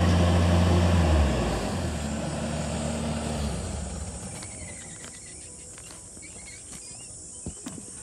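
Bobcat skid steer's diesel engine running loud with a steady low drone. The drone drops away about three and a half seconds in and the sound fades to a faint background.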